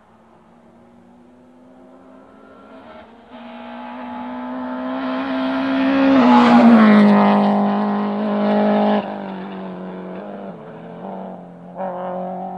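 BMW E36 rally car engine at full throttle, approaching and passing close by: the note climbs in level and drops in pitch as the car goes past about six seconds in. After that it lifts off sharply and changes up a gear as it pulls away.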